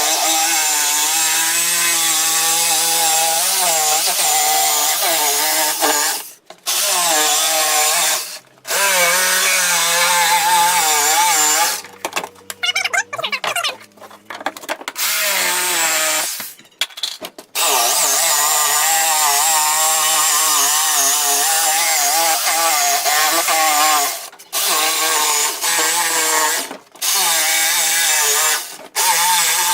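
A power saw cutting wood, the motor's pitch wavering as it loads up in the cut. It stops and starts again several times.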